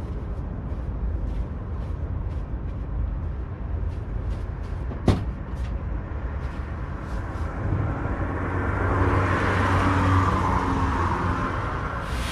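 Steady low road rumble with a vehicle passing, swelling up and fading over the last few seconds, and a single sharp click about five seconds in.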